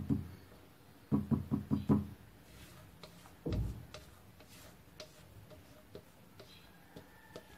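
Spatula and mixing bowl knocking while batter is scraped out of the bowl into a cake pan. There is a single knock, then a quick run of five knocks about a second in, a duller thud a little later, and faint light ticks after that.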